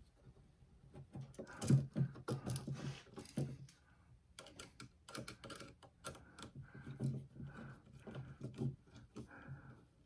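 Irregular small clicks and taps of a screwdriver working the terminal screws of a light switch, with metal and wire knocking against the switch.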